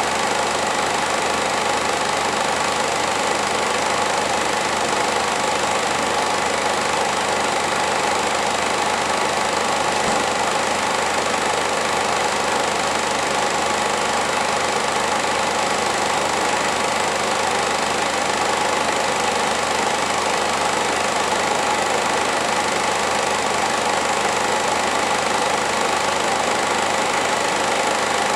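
Film projector running steadily: a constant mechanical whir with hiss.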